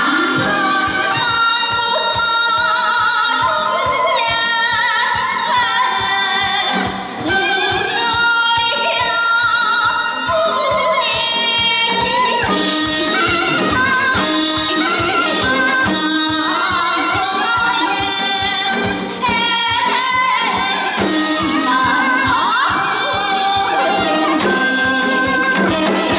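Korean folk song (minyo) performed live: a woman singing with a strong, wavering vibrato over a bamboo flute and a steady drum beat.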